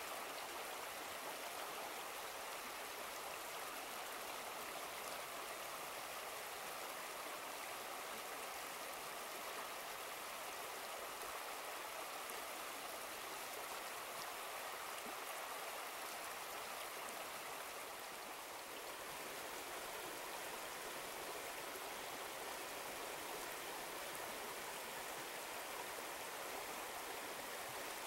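Shallow river water running over rocks, a steady rushing.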